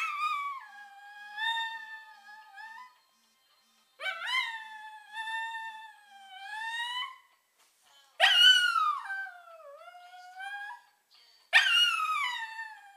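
Small Maltese and King Charles cross dog howling along to a mobile phone ringtone: four long howls, each starting high and sliding down into a held, wavering note. The last two are the loudest.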